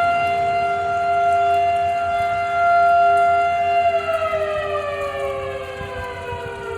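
Outdoor tornado warning sirens wailing on a steady tone, with a second, lower tone beneath it. About four seconds in, the higher tone begins to wind down, sliding lower in pitch. They are sounding for a routine test, not a warning.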